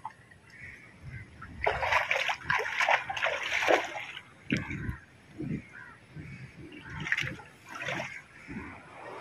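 Sea water splashing and washing against shore rocks, loudest from about two to four seconds in, with crows cawing now and then.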